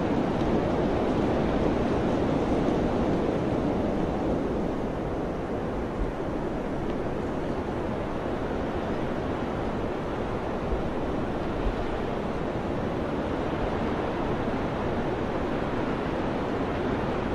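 Wind blowing steadily, a continuous rushing noise with no gusts or breaks, a little stronger in the first few seconds and easing slightly after.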